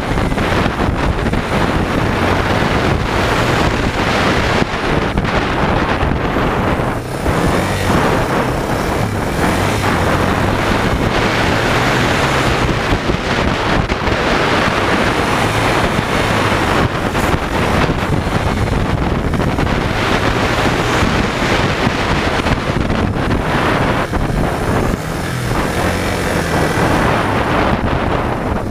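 Dirt bike engine running while the bike rides along, heavily mixed with wind rumble on a fork-mounted action camera's microphone.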